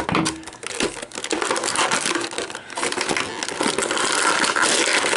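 Stiff plastic action-figure packaging crinkling and crackling as it is handled and pulled apart, a dense, continuous run of rapid crackles.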